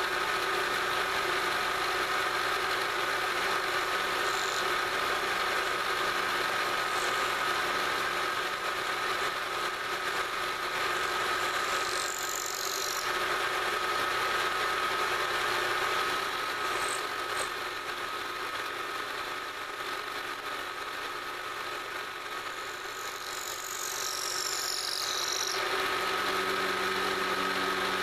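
Knee milling machine's spindle running while an end mill takes a climb-cut finish pass around the walls of a pocket in a metal plate, with a steady tone and two brief high screeches, about halfway through and again near the end.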